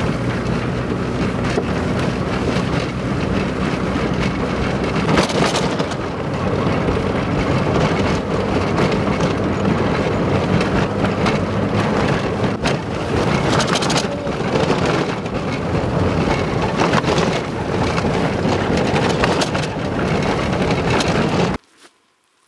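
Old car heard from inside the cabin while driving on a cracked concrete road: loud, steady engine and tyre noise with a few sharp knocks from bumps. It cuts off suddenly near the end.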